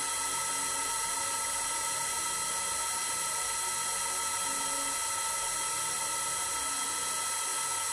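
CNC milling machine cutting cooler fins into a metal ring with an end mill: a steady high-pitched whine of several held tones over the noise of the cut.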